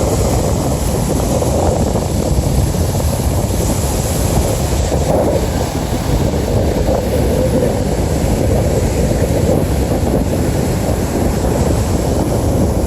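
Steady wind rumble on the microphone, loud and even throughout, with no distinct events standing out.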